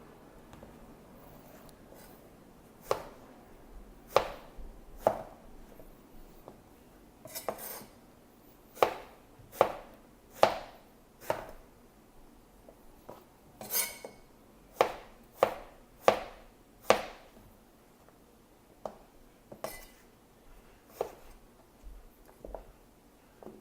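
Kitchen knife cutting eggplant into sticks, the blade knocking sharply on the cutting board with each stroke. The cuts come at an uneven pace, with some quick runs of strokes about half a second apart.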